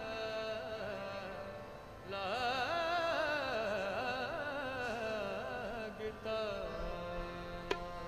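Sikh kirtan: harmoniums hold sustained chords while a singer draws out a long, wavering melodic line with no clear words. A single tabla stroke sounds near the end.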